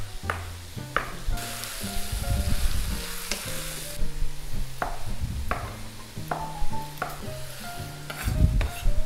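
Tripe sizzling as it browns in oil and soffritto in a pot, with about eight sharp knife strokes on a plastic cutting board as more tripe is sliced into strips.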